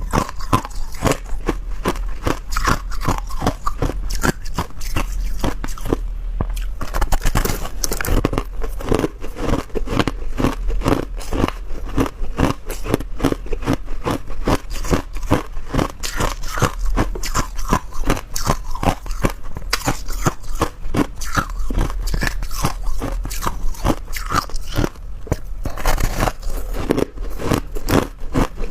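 A person biting and chewing hard ice, with rapid, close-set crunches that go on without a break, over a steady low hum.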